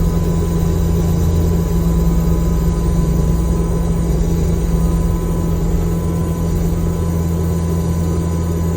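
New Holland C345 compact track loader's diesel engine running steadily under load, driving a hydraulic stump grinder attachment. The low rumble eases a little about five seconds in.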